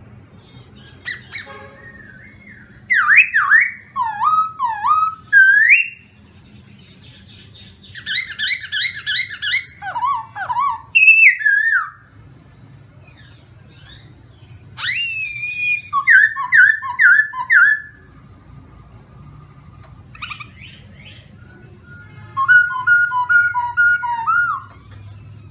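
Caged all-black laughingthrush (khướu mun) singing: four bouts of loud, varied whistled phrases with notes sliding up and down, with short pauses between the bouts.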